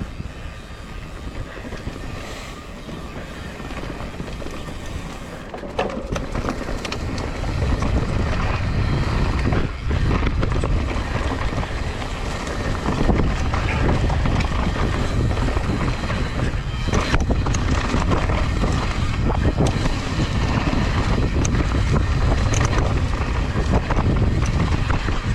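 Mountain bike descending a dry, loose dirt trail at speed: wind buffeting the microphone over the rush of the tyres, with the bike knocking and rattling over bumps. It grows louder from about seven seconds in.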